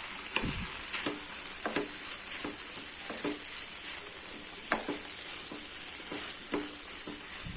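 A pan of dry anchovy fry sizzling as it is stirred, the liquid cooked off and grated coconut mixed in. The stirring utensil taps and scrapes against the pan irregularly, about once or twice a second, over a steady sizzle.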